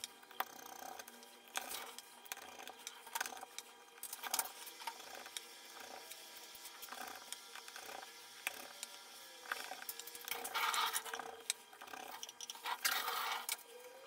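Small clicks, taps and rustles of hand tools and phone parts being handled on a repair bench, with two short hissing bursts about ten and thirteen seconds in.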